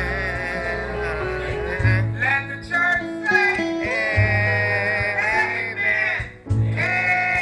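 A worship song: a voice singing over guitar accompaniment and held low bass notes.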